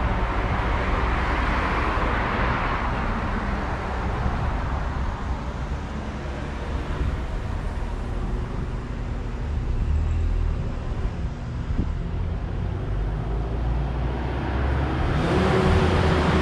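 Street traffic: a car passes and fades away in the first few seconds, over a steady low road rumble, and near the end another vehicle approaches with its engine note rising in pitch.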